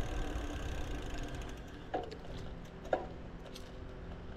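Trek Domane road bike's rear freehub ticking while it coasts, over a low rumble of tyres and wind. Two short squeaks with falling pitch come about two and three seconds in.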